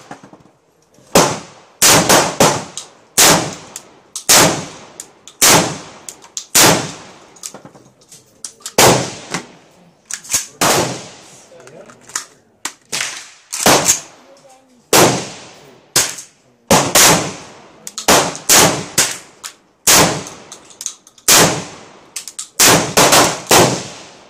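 Molot Vepr-12 semi-automatic 12-gauge shotgun firing a long string of loud shots at an uneven pace, some close together, each report followed by a short echo.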